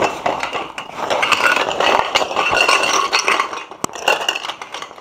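A soft carry bag being opened and a metal background stand's poles pulled out of it, scraping and rattling, with the poles clinking together. One sharp click comes about four seconds in.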